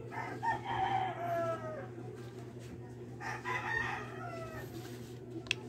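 A rooster crowing twice, each crow a long call that falls in pitch, with a sharp click near the end.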